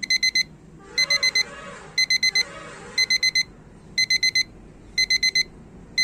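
Electronic alarm-clock-style beeping: groups of four quick, high beeps, once a second, counting down.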